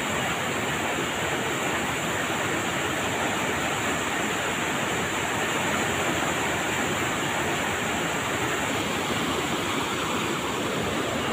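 Fast-flowing river rushing over rocks and rapids: a steady, unbroken rush of water.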